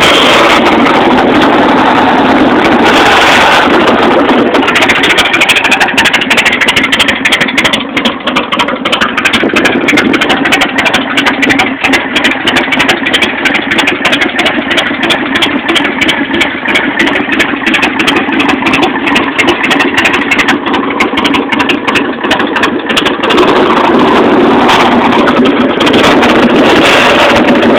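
131 cubic inch Harley-Davidson V-twin engine running loud. It idles with its firing pulses plain through the middle, and runs fuller and steadier at the start and again near the end.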